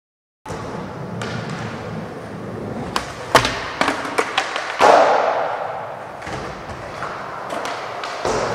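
Skateboard wheels rolling on a smooth concrete floor, with a run of sharp clacks and knocks from the board hitting the ground about three to four seconds in. The sounds echo in a large indoor hall.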